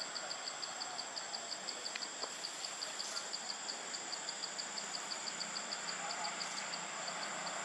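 Forest insects calling: a steady high-pitched whine with a rapid, regular pulsing chirp about six times a second over it.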